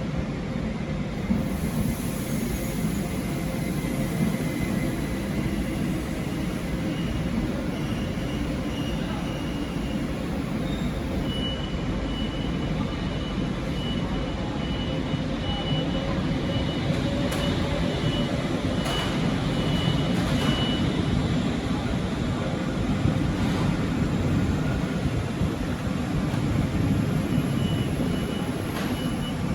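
A train at a railway station, running with a steady heavy rumble. A thin high whine comes in about a third of the way through, drops out, and returns near the end, with a few faint clicks along the way.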